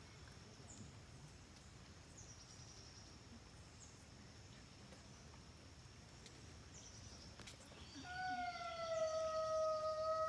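Quiet outdoor background with a few short high chirps, then about eight seconds in a wolf starts a long howl that slides slightly down in pitch and then holds steady.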